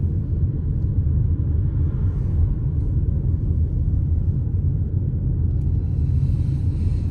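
Steady low rumble of a moving car, heard from inside the cabin: engine and road noise.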